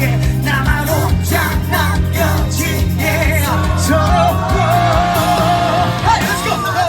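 Pop-rock song with drums, guitar and a male lead vocal. From about three seconds in, the singer holds a long note with vibrato.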